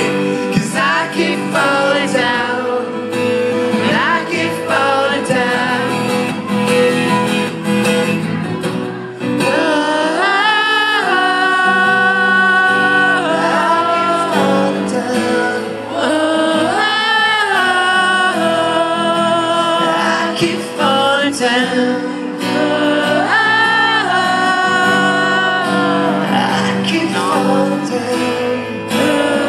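Live solo song: a male singer accompanying himself on acoustic guitar, with several long held, wavering vocal notes over the strummed chords.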